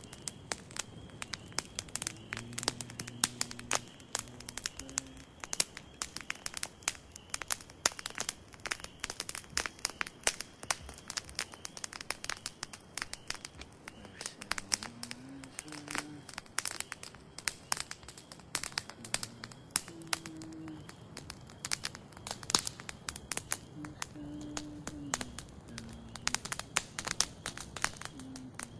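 Wood campfire crackling, with a dense, irregular run of sharp pops and cracks as the burning wood throws sparks.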